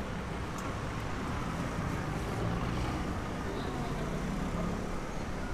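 Steady street ambience: a constant low rumble of traffic.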